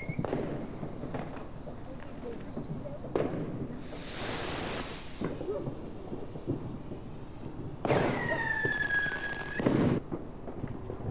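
Fireworks going off. There is a sharp crack about three seconds in, then a hissing rush. Near the end a whistling firework sounds for about two seconds, its note falling slightly, and finishes with a louder bang.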